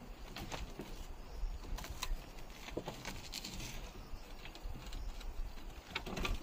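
Scattered faint knocks and clicks from an auto-rickshaw stuck in mud as it is heaved at by hand, its body and rear wheel shifting, with a louder knock at the very end.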